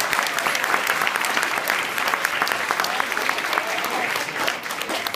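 Audience applauding, a dense mass of clapping that thins out and quietens near the end.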